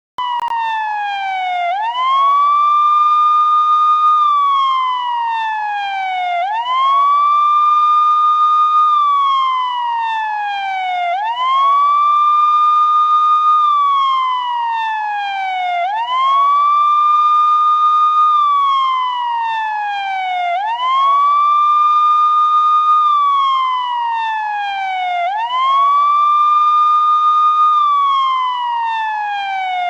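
Indian police siren wailing in a repeating cycle about every five seconds: the pitch climbs quickly, holds high for a second or two, then slides steadily down before climbing again.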